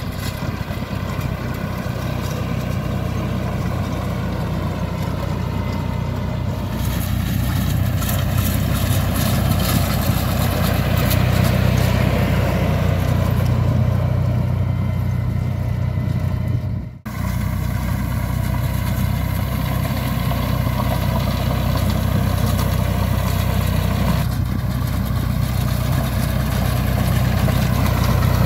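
Fendt 209P tractor's diesel engine running steadily under load while pulling a belt merger through cut ryegrass. The sound drops out for a moment about two-thirds of the way through.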